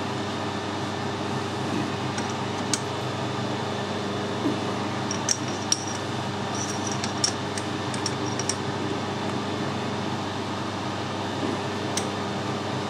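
Light metallic clicks and clinks over a steady workshop hum, with a cluster of them in the middle, as the jaws of a four-jaw lathe chuck are adjusted and tightened to set a workpiece off-centre.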